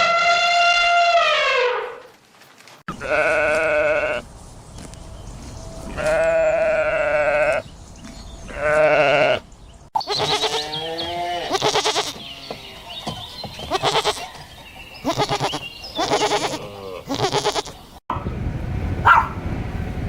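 Bleating livestock in several cut-together clips. A long falling call opens it, then three long wavering bleats follow, then a run of shorter bleats from several animals, and short sharp calls near the end.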